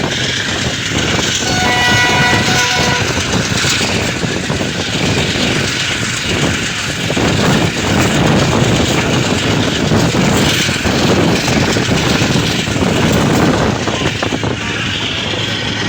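Passenger train running along the track, its wheels rumbling and clattering over the rails, with a train horn sounding one chord for about a second and a half, about two seconds in.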